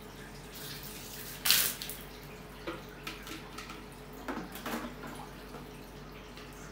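Water from a plastic bucket poured onto the metal top of an enclosed server rack cabinet: one loud splash about a second and a half in, then smaller scattered splashes and drips.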